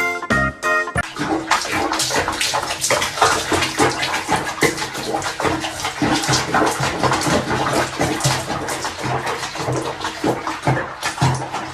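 Water splashing and running in a continuous, irregular spatter, after a snatch of music that stops about a second in.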